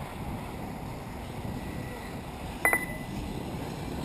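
A short, sharp electronic chirp, a quick run of clicks with a ringing high tone, about two-thirds of the way in, over steady background noise. It is typical of an RC race lap-timing system registering a buggy crossing the line.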